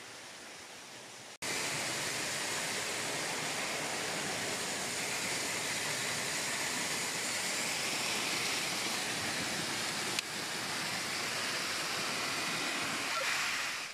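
Electric heat gun blowing hot air with a steady, even hiss, drying the wooden waterwheel shaft. It starts abruptly about a second and a half in.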